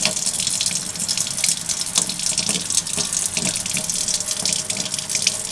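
Kitchen tap running a thin, steady stream into a stainless steel sink, with small irregular splashes and ticks over the steady hiss of the water.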